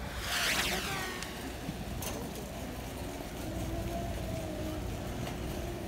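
Warehouse store ambience: a steady low hum and rumble of shopping carts rolling on a concrete floor under distant shoppers' voices, with a brief high squeal falling in pitch right at the start.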